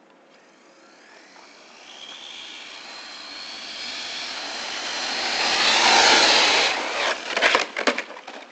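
A 1/10-scale 4x4 RC short course truck with a 3650 3500KV brushless motor on 4S, running at full throttle: its high whine slowly rises in pitch as it closes in, grows loud, and passes close about six seconds in. Shortly after, a quick run of sharp, loud knocks and crackles.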